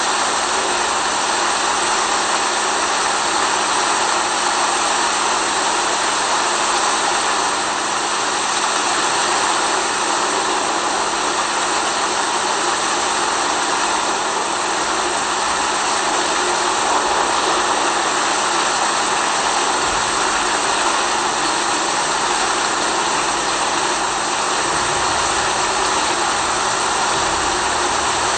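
Steady, unbroken rain-like hiss, even throughout, with a steady low hum beneath it.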